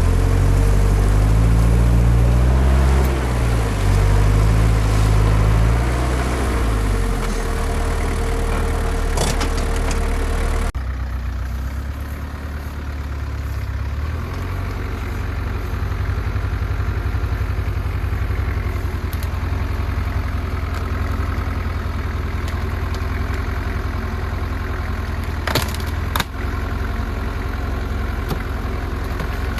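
Off-road 4x4's engine revving unevenly under load for the first several seconds, then running steadily at low revs. A couple of sharp knocks near the end.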